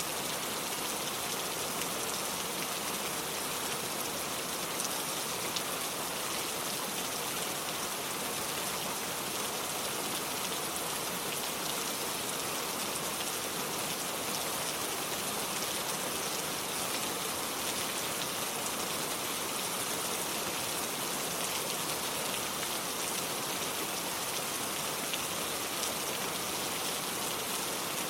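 Steady rain falling on hard surfaces, an even hiss with fine patter of drops and no pauses.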